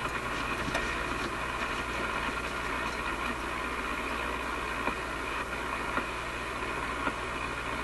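Steady shortwave static and hiss from an RCA A25 vacuum-tube radio's speaker while the tuning knob is turned down the band, with a low steady hum underneath.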